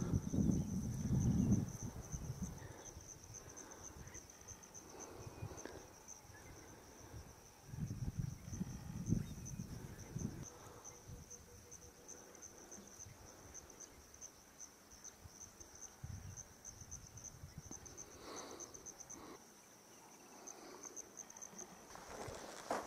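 An insect trilling steadily at a high pitch with a fast, even pulse. Louder low rumbles come near the start and again about eight to ten seconds in.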